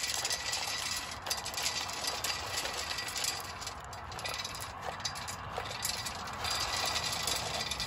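Wood pellets poured from a plastic cup into the steel pellet chute of a homemade rocket stove: a continuous rattling trickle of small hard pellets falling on metal.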